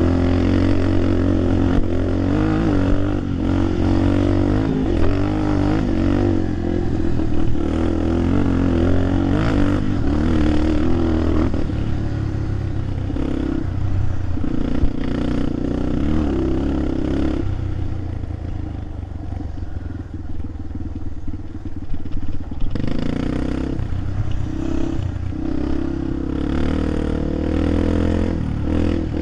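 Engine of a vehicle driving a rough dirt trail, running under changing load, easing off for a few seconds past the middle and picking up again.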